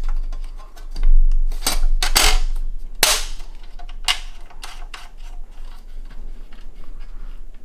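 Clattering and knocking of a small PC case's side panels being handled and fitted, with several sharp clacks about two, three and four seconds in.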